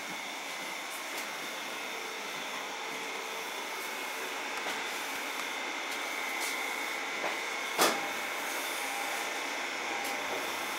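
Steady running noise inside a stationary 205-series electric train car, with a thin high steady tone from its air-conditioning and onboard electrical equipment. A single sharp click about eight seconds in.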